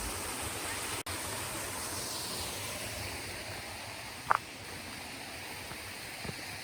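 Steady rushing of flowing water from the stream and falls in the valley. The sound drops out for an instant about a second in, and one short sharp click comes about four seconds in.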